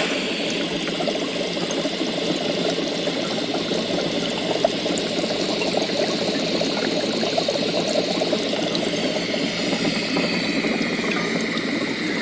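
Sci-fi laboratory ambience sound effect: steady bubbling and gurgling of liquid, as in lab tanks, with a faint high electronic tone that slides lower near the end.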